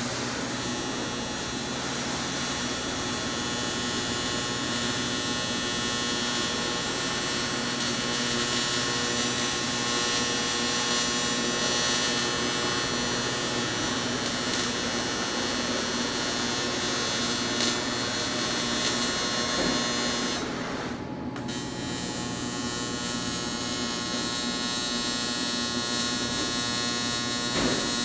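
Electric welding arc on cast aluminum, a steady buzz that cuts out for about a second some twenty seconds in and then restarts.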